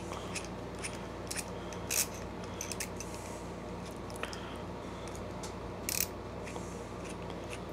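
Light, irregular metal clicks and ticks from hand tools, a ratcheting tap wrench and helicoil insertion tool being fitted and turned, with two sharper clicks about two and six seconds in. A steady low hum runs underneath.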